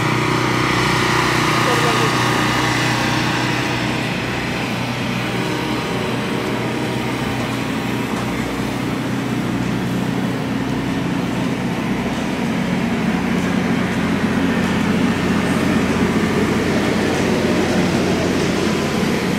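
Steady engine drone with a low, even hum, with voices in the background.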